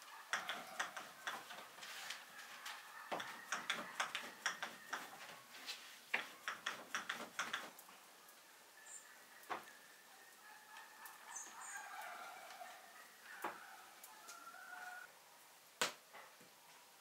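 Chickens clucking over a quick run of clicks and taps for the first half. After that come a few single sharp knocks, the loudest near the end.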